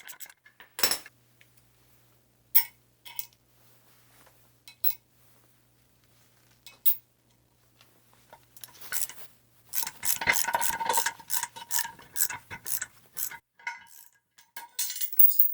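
Hand tools working on a cast-iron air compressor pump during crankshaft removal: scattered sharp metal clicks and clinks, then a dense run of rapid clicking with a metallic ring from about two-thirds of the way in.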